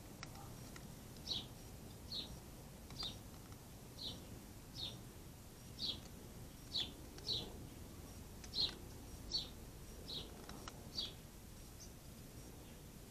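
A small bird calling a short, high chirp over and over, each note dropping slightly in pitch, roughly once a second, over faint outdoor background noise.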